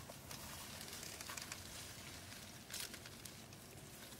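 Faint rustling and light crackling of leafy branches being handled and pushed into place, over a steady outdoor hiss.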